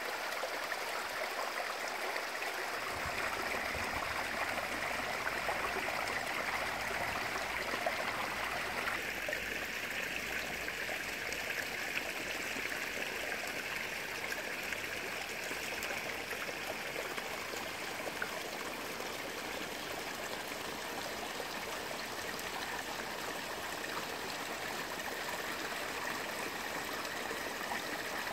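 Water running steadily down a small rock cascade into a garden pond, trickling and splashing like a little stream; the sound thins a little about nine seconds in.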